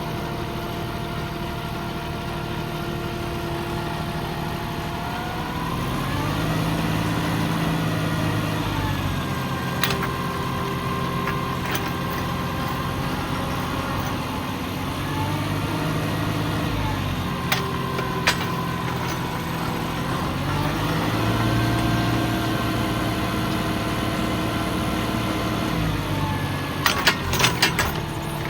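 Tractor engine running, its speed stepping up and settling back three times as it works a hole in rocky ground. A few sharp clicks are scattered through, with a quick cluster of them near the end.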